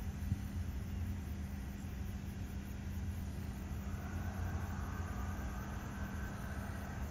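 Low, steady engine drone from a large LNG carrier sailing past, a constant hum that holds the same pitch throughout.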